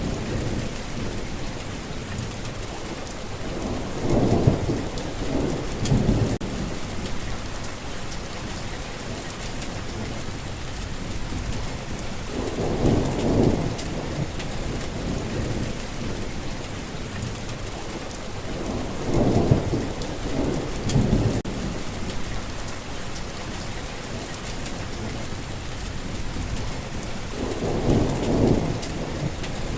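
Steady rain falling in a thunderstorm, with low rolls of thunder swelling up and fading away about four times.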